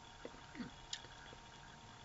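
Quiet room tone with a few faint, scattered clicks during a pause in speech.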